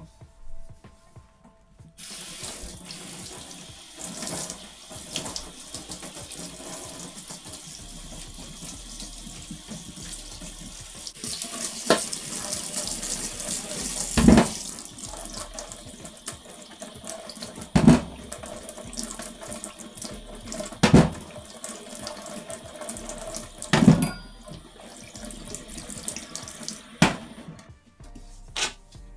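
A tap running water into a sink, turned on about two seconds in and off near the end, with about six sharp knocks of objects set down or bumped against it along the way.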